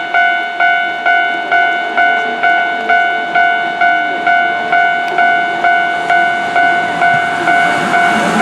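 Level-crossing warning bell at a Japanese railway crossing, ringing steadily at about two strikes a second. A train's rumble starts to build under it at the very end.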